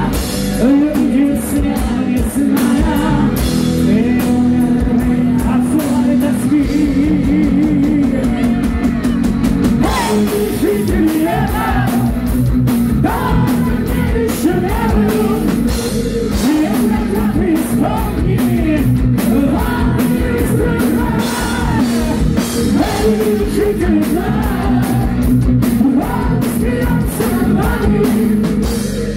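Heavy metal band playing live and loud: drum kit, distorted electric guitars and bass guitar, with a sung lead and melody lines bending over them.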